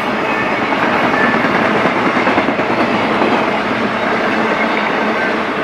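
Intermodal freight train cars rolling past, their wheels making a steady, loud running noise on the rails.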